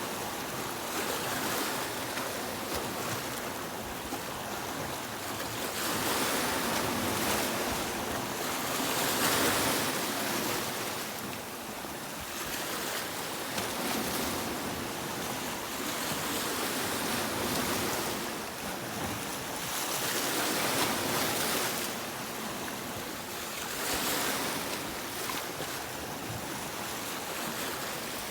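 Sea waves breaking and washing in, a continuous rush of surf that swells and eases every few seconds.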